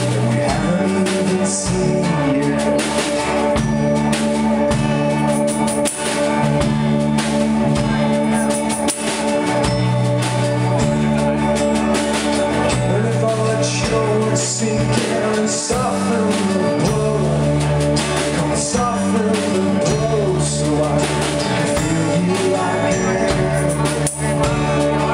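A live band playing a rock song: strummed acoustic guitar, electric bass and drum kit, mostly without lead vocals.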